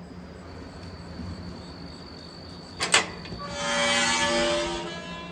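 Barn stall door: a sharp latch click about three seconds in, then the door sliding open with a drawn-out squeal lasting about a second and a half.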